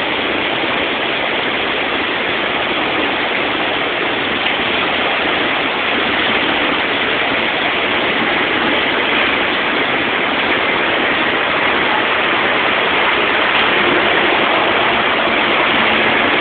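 Flood-swollen creek rushing and cascading over rocks, a steady sound of fast-running water.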